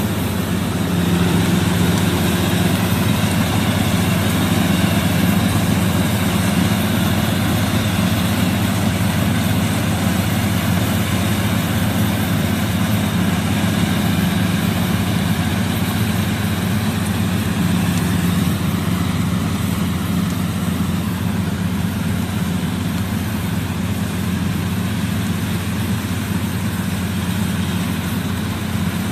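Gatra rice combine harvester's engine and machinery running steadily as it harvests standing rice.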